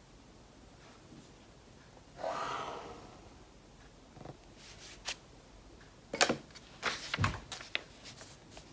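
A pen drawing a line along a plastic ruler on paper: one scratchy stroke about a second long, about two seconds in. Several sharp clicks and a deeper knock follow as the ruler is handled and moved away.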